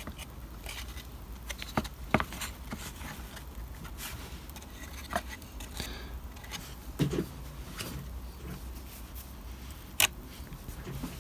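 Scattered light clicks and taps of fingers handling a small card-and-plasticard model building, turning it over a cutting mat to check the roof's alignment.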